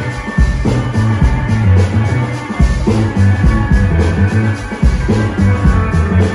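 Live psychedelic rock band playing loudly: an electric guitar melody over a repeating electric bass line and drums.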